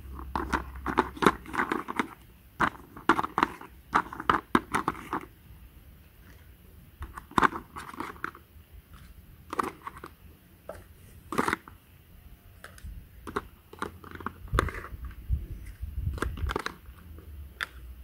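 Plastic toy pizza slices and a plastic pizza server clicking, clacking and scraping against a plastic pan as the slices are pried up and set down. The clacks come in quick clusters at first, then more sparsely, with a few low thuds near the end.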